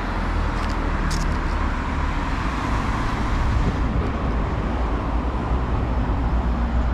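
Steady road noise of a car driving along: a continuous low rumble of tyres and engine with an even hiss above it.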